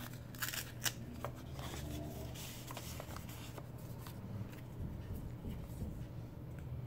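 Soft paper rustles and a few light clicks as a stack of small die-cut paper stickers is slid out of a little paper envelope and fanned through by hand, mostly in the first two or three seconds.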